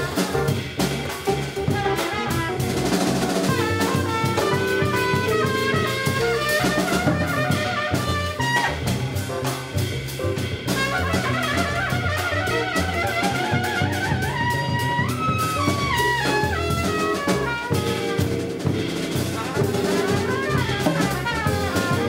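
Live jazz combo: a trumpet plays quick melodic runs over an upright bass and a drum kit with cymbals, with an archtop guitar in the band.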